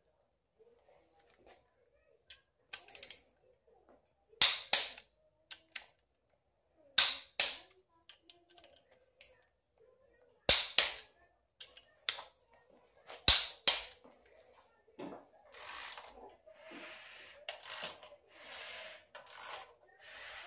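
Torque wrench on the connecting-rod bolts of a 5.7L HEMI, clicking sharply in pairs every few seconds as bolts reach 30 ft-lb, the first stage before a further 60 degrees. Near the end a ratchet rasps in a run of short strokes.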